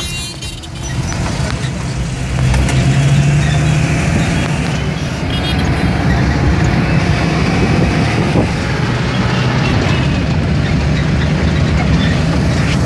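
Engine and road noise of a van driving, heard from inside its cab: a steady low hum that grows louder about two seconds in.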